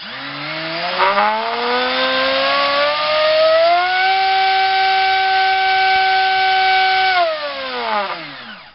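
Multistar Viking 2208 2600kv brushless drone racing motor spinning an APC 5x5 electric propeller on a 3-cell LiPo during a thrust test. Its whine rises in pitch as the throttle comes up over about four seconds, holds steady for about three seconds, then falls away as it spools down and stops near the end.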